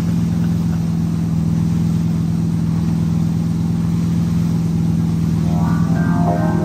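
Wake-surf boat's inboard engine running steadily at a constant pitch while towing a surfer, over the rush of the wake.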